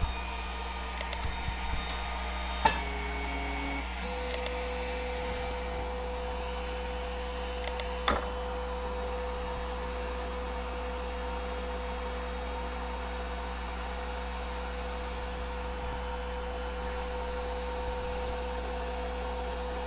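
Snapmaker 2.0 with a 10 W laser module running during focus calibration: a steady machine hum with a few light clicks in the first seconds, joined about four seconds in by a steady whine.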